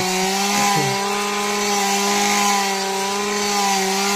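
Petrol brush cutter (strimmer) running at high revs while cutting long grass: a steady, high-pitched engine drone whose pitch wavers slightly as the line meets the grass.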